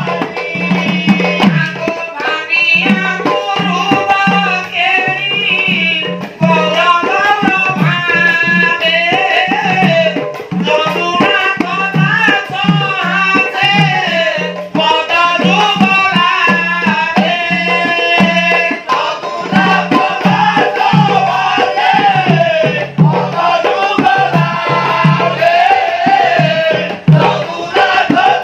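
Odia devotional kirtan: male singing with a wavering, ornamented melody over steady rhythmic strokes of two-headed mridanga (khol) barrel drums and the jingle of small hand cymbals, pausing briefly between phrases.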